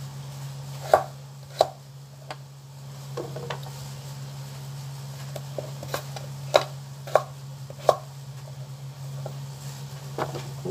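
Kitchen knife chopping carrot on a cutting board: single sharp knocks of the blade hitting the board at irregular intervals, about ten in all, over a steady low hum.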